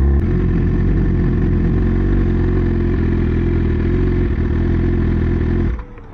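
Big sport motorcycle's engine running at a steady, even speed close by. It cuts off suddenly near the end.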